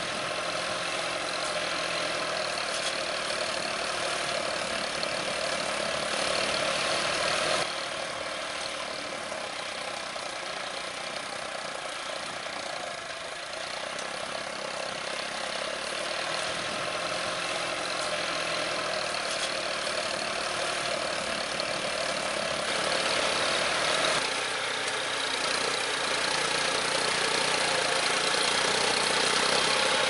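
John Deere tractor's diesel engine running steadily under load while pulling a plough through dry soil. It grows louder over the second half as the tractor draws closer.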